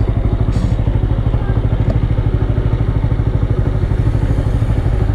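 TVS Apache RTR 200's single-cylinder engine idling steadily with a fast, even pulse, heard close up from a camera mounted on the bike.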